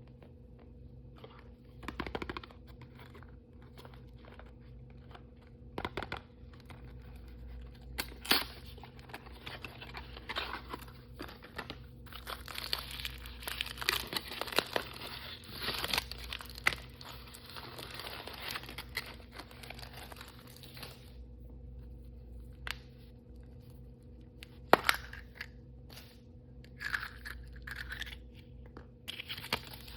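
Plastic and foil blind-bag wrappers being torn open and crinkled by hand, with a denser run of crinkling through the middle and scattered sharp clicks and taps of plastic handled on a table, the loudest near the end.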